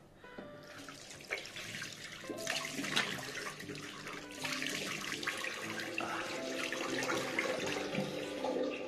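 Water running from a tap into a sink and splashing, growing louder over the first couple of seconds.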